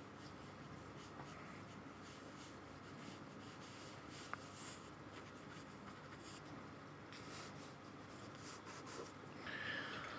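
Faint paintbrush strokes on paper: a brush working paint in short, irregular strokes, with one small tick about four seconds in.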